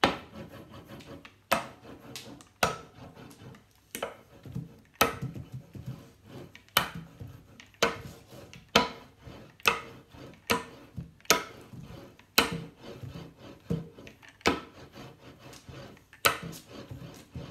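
Hand pressing and rubbing firmly over the back of a sheet of paper laid on an inked printing plate on a tabletop, transferring a monoprint. Sharp knocks and taps come irregularly, about one a second, over a fainter rubbing.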